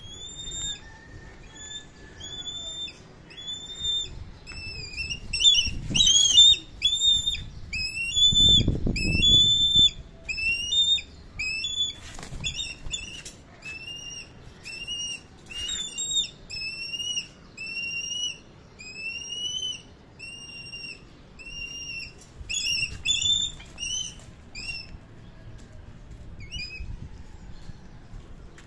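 Black kite giving a long series of short whistled calls, one to two a second, most of them rising slightly in pitch. A low rushing noise comes briefly about nine seconds in.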